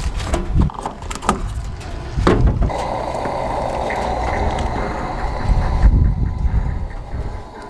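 Fuel door and filler clicks and knocks, then a gas pump nozzle filling a pickup's fuel tank: a steady hiss of flowing fuel starting about three seconds in and fading a few seconds later.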